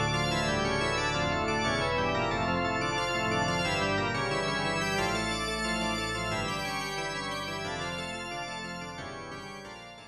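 Background music of sustained keyboard chords, fading out over the last few seconds.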